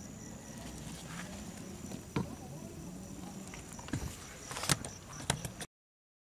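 Outdoor background with a steady high insect drone and a low wavering hum, broken by a few sharp clicks in the second half. The sound cuts off abruptly to dead silence near the end.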